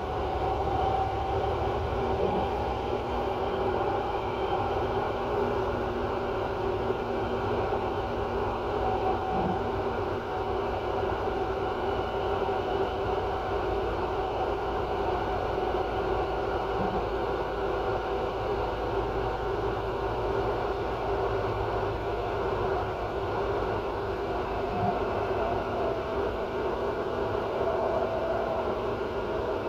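Regional train running steadily along the track, heard from inside its unoccupied rear driver's cab: a continuous rumble and hum, with a faint knock about every seven seconds.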